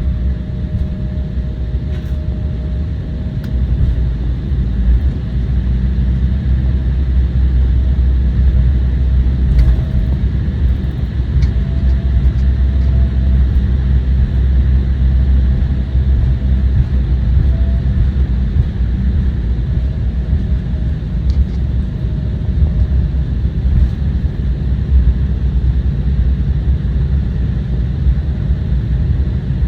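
Steady low rumble inside the cabin of an Embraer 175 jet taxiing after landing. It grows a little louder about four seconds in, and a faint thin whine comes and goes over it.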